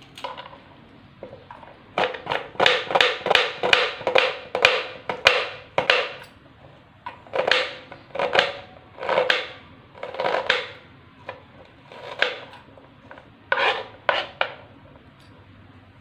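Kitchen knife chopping an onion on a plastic cutting board: a quick run of cuts for about four seconds, then slower single cuts roughly once a second.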